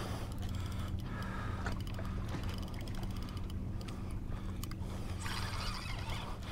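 Spinning reel clicking in fast runs of ticks during a fight with a hooked fish, as line is given off the drag and the handle is cranked.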